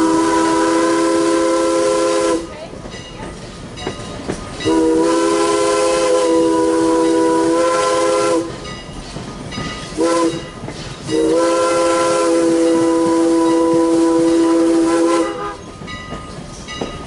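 Steam locomotive's chime whistle blowing a chord of several notes in the grade-crossing pattern: two long blasts, a short one, then a long one. This is the signal for approaching a road crossing.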